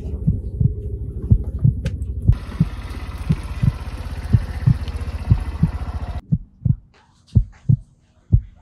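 Heartbeat-like low thumping, about three beats a second, over a low rumble. A steady hiss comes in about two seconds in and cuts off about six seconds in, after which the thumps go on more sparsely over near quiet.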